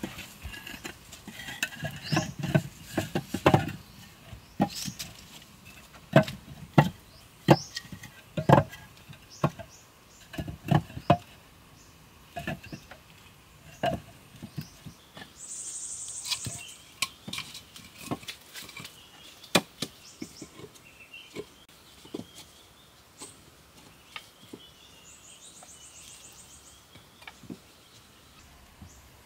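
Cut wooden poles knocking against each other and the frame as they are laid one by one into a pole platform: a long string of irregular sharp wooden knocks and clunks. A brief high-pitched buzz sounds about halfway through, and a fainter pulsing buzz near the end.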